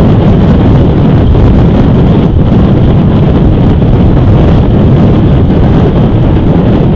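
Strong wind blowing across an outdoor microphone: a loud, steady rushing noise, heaviest in the low end, without a break.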